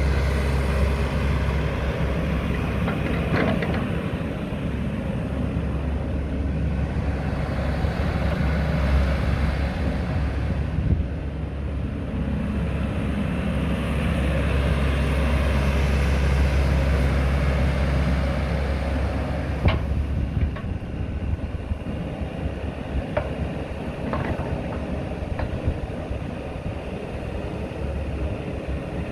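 Komatsu PC110 tracked excavator's diesel engine running steadily while the machine slews and works its boom and arm on the hydraulics. There is a sharp knock about three seconds in and another around twenty seconds in.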